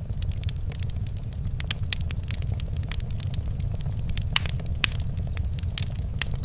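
Wood fire in a fireplace crackling, with irregular sharp pops over a low steady rumble; a few louder pops stand out about two seconds in and again between four and six seconds in.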